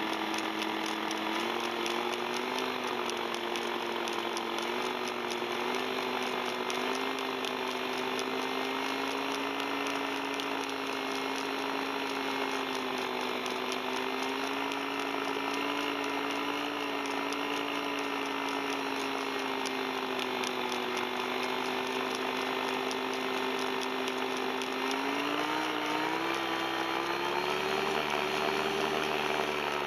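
Tandem paramotor's engine and propeller running steadily in flight. The engine's pitch wavers slightly, then climbs as the throttle opens near the end.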